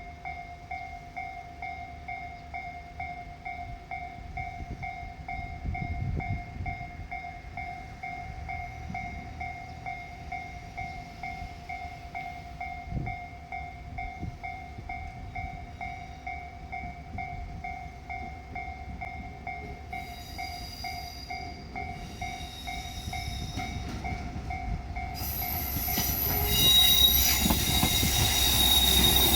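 Japanese level-crossing warning bell ringing with a steady, evenly repeating clang. Over the last few seconds a JR Shikoku diesel railcar approaches, growing louder with engine, wheel and squealing noise.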